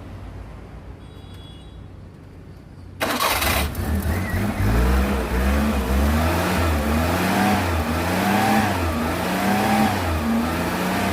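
Maruti 800's carburetted three-cylinder engine started by wiring the starter motor straight from the battery. It cranks and catches suddenly about three seconds in, then revs up and down under repeated throttle blips. Since the engine starts when the starter is fed directly, the fault lies in the switching circuit.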